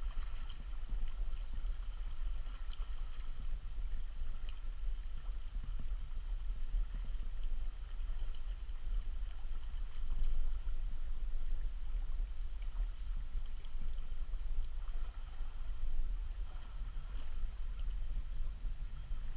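River water flowing past a fish weir, a steady rushing with a low rumble of wind on the microphone and faint steady high-pitched tones above it.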